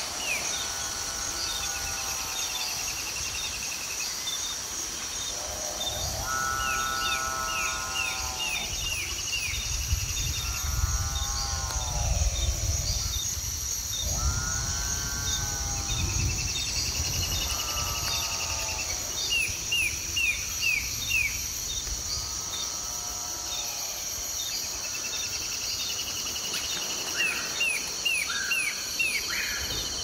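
Layered tropical rainforest ambience: a steady high insect drone, with drawn-out animal calls repeating every couple of seconds, each rising and then falling. Quick runs of bird chirps come over the top, and a low rumble swells in the middle.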